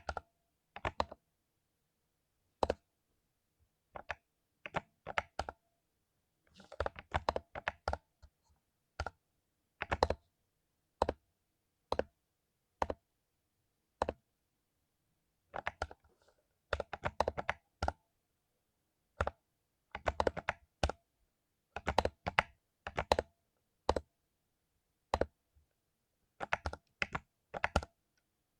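Mechanical keyboard with lubed Cherry MX Silver linear switches being typed on: single keystrokes and short quick flurries of keys, separated by brief pauses.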